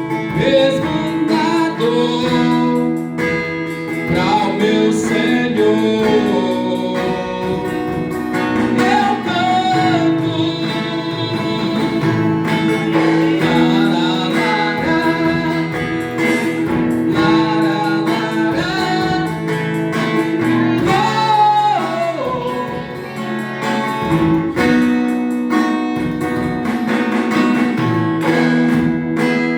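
Music: a worship song sung over guitar accompaniment, the voice carrying a gliding melody over steady chords.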